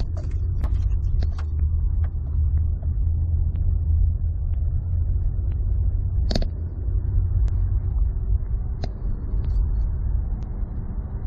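A 2007 Pontiac Grand Prix heard from inside the cabin while driving: steady low engine and road rumble, with a few brief knocks, the loudest about six seconds in.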